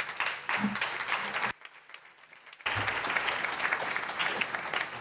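Audience applauding, with a break of about a second in the middle.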